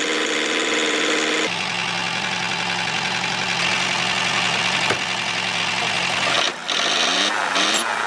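A small engine running steadily, with a shift in its sound about a second and a half in and a few brief dips and rising notes near the end.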